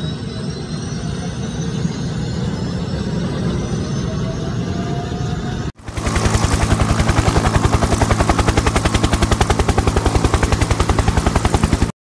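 Helicopter sound: a turbine whine rises slowly over a rumbling noise. After a sudden cut about halfway, a steady, fast rotor chop takes over at about eleven beats a second and stops abruptly near the end.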